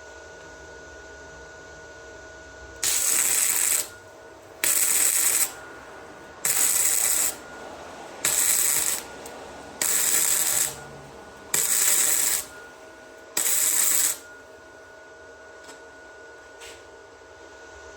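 MIG welder laying short stitch or tack welds: seven bursts of arc noise, each about a second long and roughly two seconds apart, that start and stop sharply.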